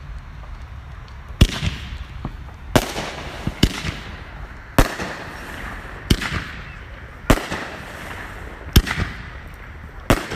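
Aerial fireworks going off in a steady string of about eight sharp bangs, roughly one every second or so, each followed by a short hissing tail.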